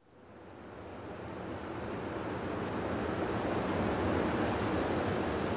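Steady rushing of flowing river water, fading in over the first two or three seconds and then holding even.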